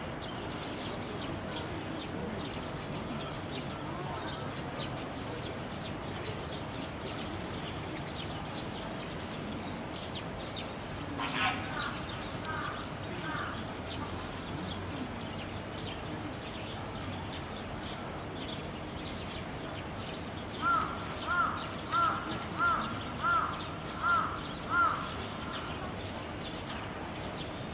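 A bird out of sight calls: a brief burst of notes about eleven seconds in, then seven short, evenly spaced calls about two-thirds of a second apart near the end. Underneath is a steady outdoor hum with faint distant voices.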